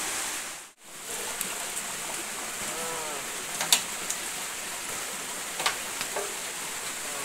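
Steady hiss of rain and running water. The sound drops out for a moment just under a second in. A faint distant voice comes about three seconds in, and there are a few sharp clicks.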